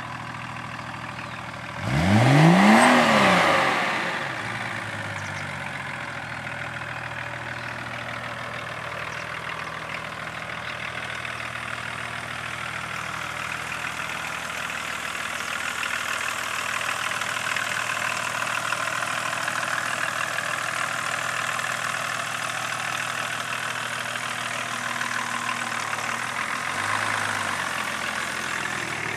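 Straight-piped 2.5-litre inline-six turbodiesel of a 1993 BMW E34 525tds, revved once about two seconds in, its pitch climbing sharply and dropping straight back, then idling steadily, with a small blip of the throttle near the end.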